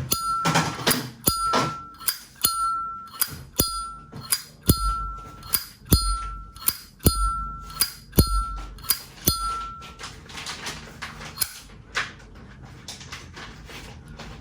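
A vintage Zippo lighter's lid is flipped open and snapped shut about nine times, roughly once a second. Each flip gives a click and a clear metallic ring that is cut off by the closing snap. The flipping stops about ten seconds in, and a few softer clicks follow.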